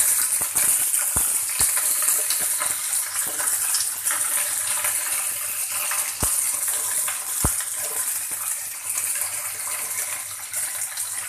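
Cut okra, still wet from washing, sizzling steadily in hot oil in a frying pan, with a few sharp clicks. The hiss eases slowly as the pan settles.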